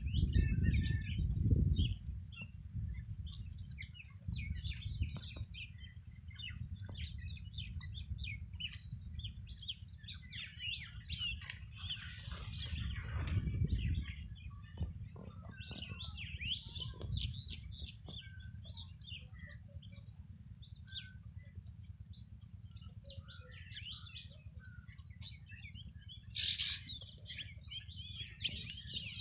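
Small birds chirping and twittering throughout, in busier bursts about halfway through and near the end, over a steady low rumble that is loudest in the first two seconds.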